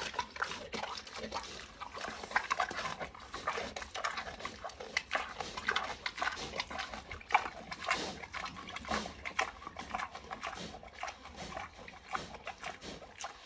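Pig chewing juicy fruit with open-mouthed, wet smacking: a dense, irregular run of clicks and smacks.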